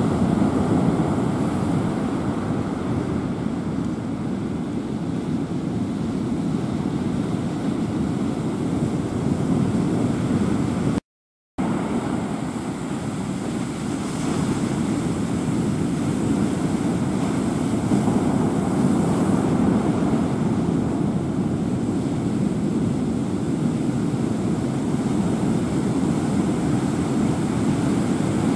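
Steady rushing noise of typhoon weather, wind and sea, with the sound cutting out completely for about half a second about eleven seconds in.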